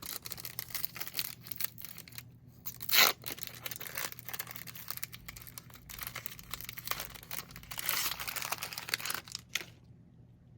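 Trading-card pack wrappers being torn open and crinkled. There is one loud tear about three seconds in and a dense run of crinkling near the end.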